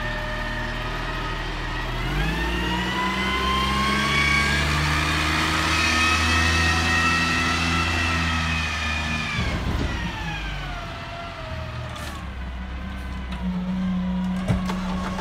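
Garbage truck engine revving up about two seconds in and holding high revs for several seconds as the truck pulls forward, then dropping back. A sharp knock comes near the end.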